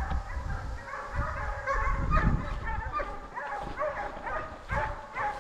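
A pack of deer hounds baying, several dogs calling over one another in a steady chorus, with a few low thumps on the microphone.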